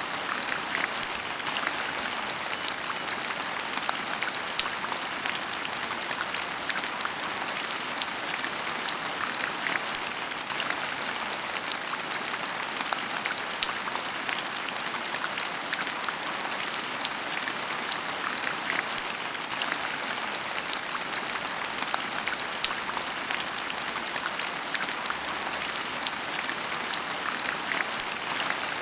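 Heavy rain falling steadily: a dense, even wash of sound peppered with countless sharp ticks of drops striking surfaces.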